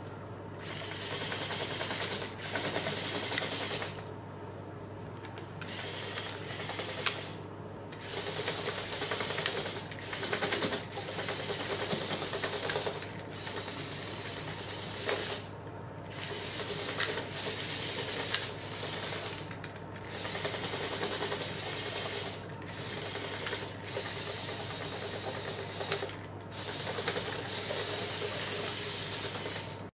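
LEGO Technic Power Functions motors driving a mecanum-wheel car through plastic gears, whirring in repeated spells of one to three seconds with short pauses between them.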